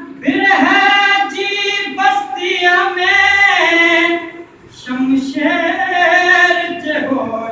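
A voice singing a song in long held, ornamented notes: two phrases with a short break about four and a half seconds in.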